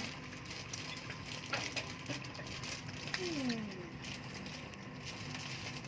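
Quiet chewing and mouth sounds of a person eating, with a few soft clicks and a brief faint voice in the background about three seconds in.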